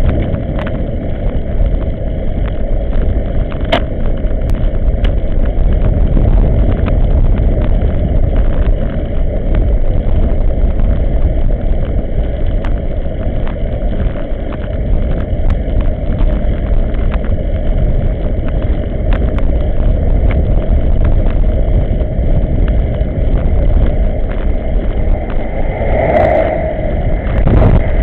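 Wind rushing over the microphone of a camera riding on a moving bicycle, a loud, steady low rumble with many small clicks and knocks through it. Near the end a car approaches on the road and grows louder.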